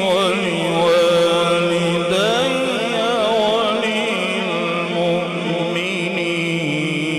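A male qari reciting the Quran in melodic tajwid style, one voice holding long, ornamented notes that waver and glide in pitch.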